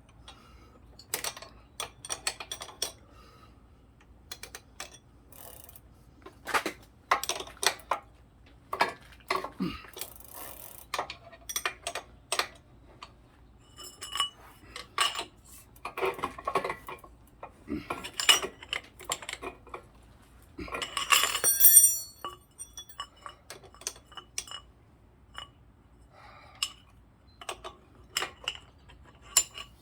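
Metal hand tools clinking and knocking against an e-bike's pedal and crank arm in an irregular series of sharp clicks and clanks, with a louder rattling cluster about two thirds of the way through.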